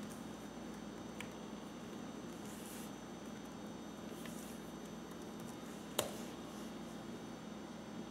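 A few scattered key clicks on a laptop keyboard, with one sharper click about six seconds in, over a faint steady hum.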